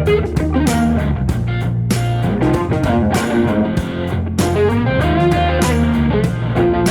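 Rock instrumental intro music led by electric guitar over a steady, hard-hitting drum beat.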